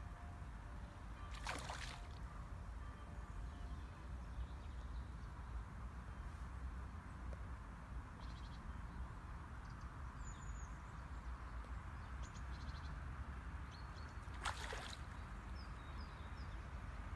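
Outdoor river ambience: a steady low rumble of flowing water and wind, with two brief splashes, one early and one near the end, and a few faint high bird chirps around the middle.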